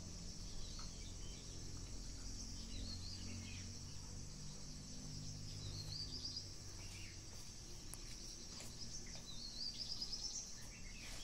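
Steady high-pitched insect chorus, with a bird chirping now and then; a quick run of rising chirps comes near the end.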